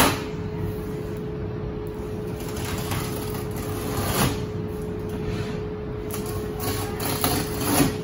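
Packing tape on a cardboard box being scored and slit with a key: short scratchy scrapes, loudest about four seconds in and near the end, over a steady low hum.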